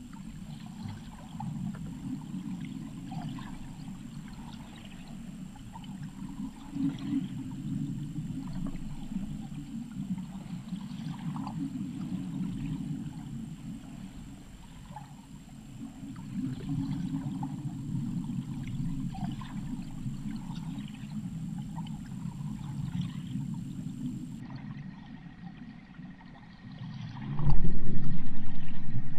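Underwater ambience picked up by a submerged camera: a steady low rumble of water with faint scattered clicks and ticks. Near the end a sudden loud, low thump and rumble sets in and slowly fades.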